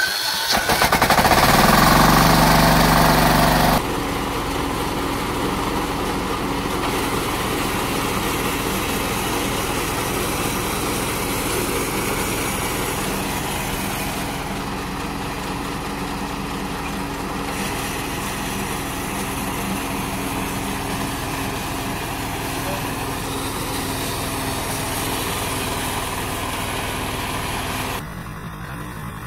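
Small engine of a GY 0.9B Plus mini combine harvester catching and revving up just after being started. It then runs steadily as the machine cuts and threshes paddy. Near the end the engine sound drops quieter.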